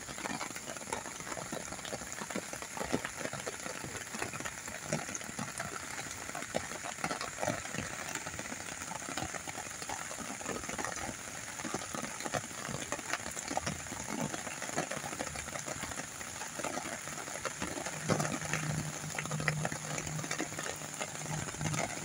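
Steady rain falling, heard as a dense crackling patter of drops, with a low steady hum coming in near the end.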